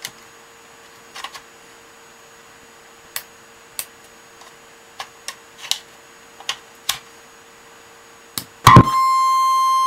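Several faint clicks from handling wires, then about nine seconds in a loud thump from the Radiotehnika S-30 speaker as the MasterKit class-B amplifier is switched on at 20 V: its very strong turn-on pop, the main fault of this amplifier. Straight after, a steady tone with overtones sounds from the speaker.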